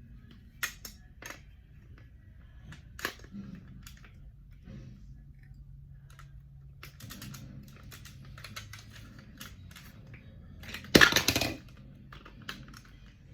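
Plastic LEGO bricks being handled: scattered light clicks and taps, then a loud rattling clatter of loose pieces lasting about half a second near the end.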